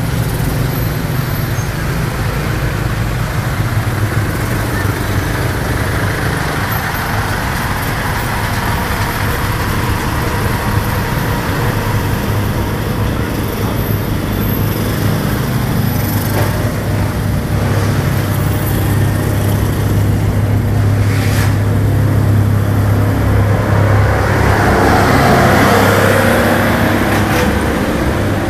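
Baht bus (songthaew pickup) running in slow city traffic, heard from its open rear passenger bed: a steady low engine drone under road and traffic noise, swelling slightly near the end as large trucks pass close by.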